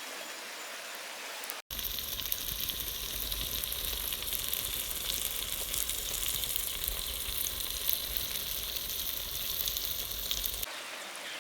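Chicken pieces and masala frying in oil in a kadai: a steady sizzle full of fine crackles. It is quiet at first, then turns abruptly louder and denser about two seconds in, and drops back down near the end.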